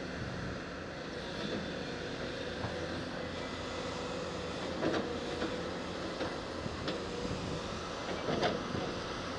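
Backhoe loader's diesel engine running steadily with a faint steady whine, broken by a few short metallic knocks.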